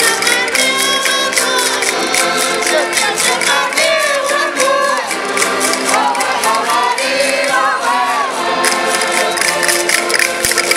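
Minho folk song: women singing together over concertinas (button accordions) playing chords to a steady beat. The singing stops about eight seconds in and the concertinas carry on.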